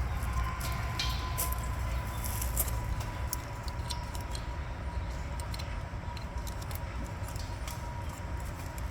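Scattered light clicks and taps from handling the metal fittings on a propane tank, over a steady low rumble and a faint steady whine.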